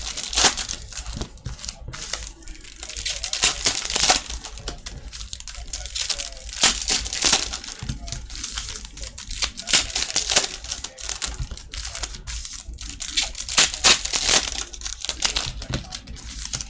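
Foil trading-card pack wrappers being torn open and crinkled by hand, with cards handled between; irregular crackling rustles come and go.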